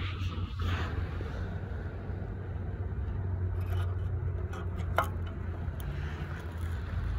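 Steady low rumble of wind on the microphone, with a brief scrape near the start and a single sharp click about five seconds in as a burning fire starter is pushed into an aluminium beer-can stove.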